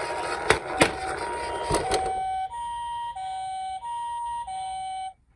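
Toy ambulance's electronic two-tone siren playing the Japanese ambulance 'pee-po' pattern, alternating a higher and a lower tone about every two-thirds of a second, and cutting off suddenly near the end. In the first two seconds it is faint under a rattling rolling noise and a few sharp knocks as the toy runs down a slope.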